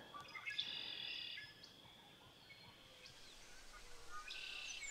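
Faint wild birdsong from a lakeside wetland: short high calls about half a second in and again near the end, with a near-silent stretch between.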